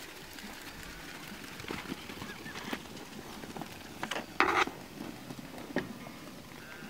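Sheep hooves and a herding dog's feet pattering on a dirt pen floor as the flock is moved, in scattered irregular steps, with one short louder scuff about four and a half seconds in.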